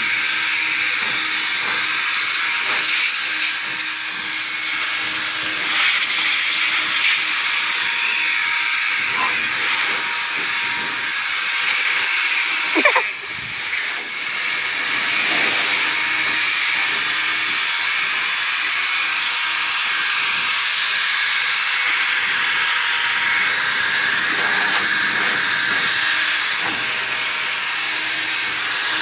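Leaf blower running steadily with a loud airy hiss, and a short rising sound about halfway through.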